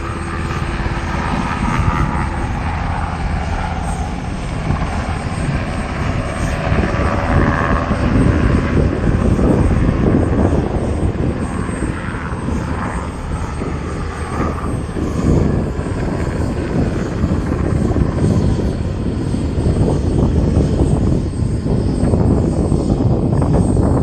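Black Hawk-type military utility helicopters with water buckets slung beneath them, their rotors and turbine engines running as they fly past. A steady rotor rumble with a faint engine whine in the first seconds turns into a louder, rougher rumble about eight seconds in.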